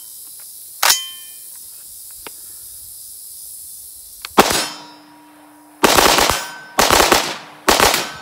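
AR-15 rifle with an 18-inch .223 Wylde upper and an echo (binary) trigger: a sharp metallic clack about a second in as the action is worked after a failure to feed, then a single shot about four seconds in, followed by three quick strings of rapid fire, the trigger firing on both pull and release.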